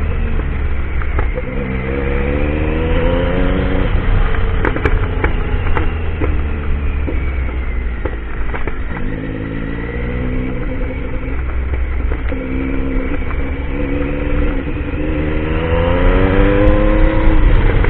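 Motorcycle engine under way, pulling up in pitch three times as it accelerates, the last and loudest pull near the end, over a constant low rumble of wind and rough ground.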